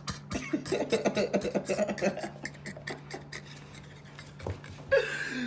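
Handling noise of a hand-held camera: a rapid run of clicks, taps and rubbing as it is gripped and moved about, over a steady low electrical hum, with faint muffled voice sounds in the first half.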